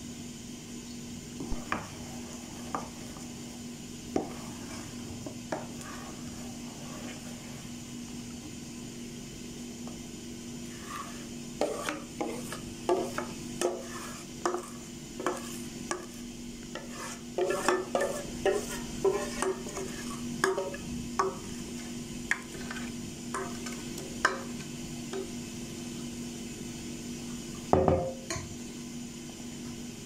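Metal spoon scraping and clinking against a stainless steel mixing bowl while cake batter is poured out into a metal cake pan: a few scattered clinks at first, then a busy run of clinks and scrapes through the middle, and one louder knock near the end, over a steady low hum.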